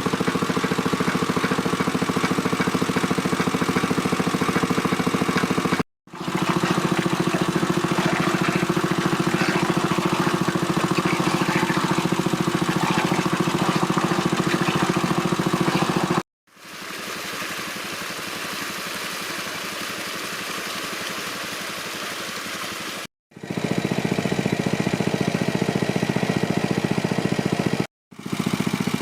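Small engine running steadily, heard in several cut-together takes with brief drops to silence between them. One take, in the middle, is quieter and thinner.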